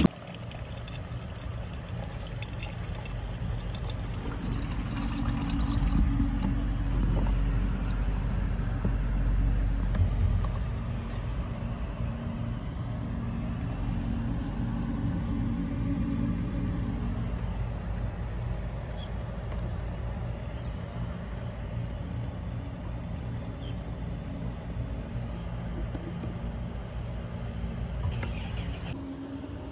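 Thin stream of water from a street drinking fountain's tap trickling into a plastic sports bottle as it fills, over a low steady rumble.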